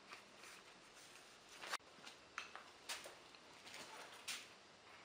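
Faint clinks and rustles of a leather tool belt with its tool pouch being unbuckled and taken off, with a sharper knock about a second and a half in and a few light clicks after.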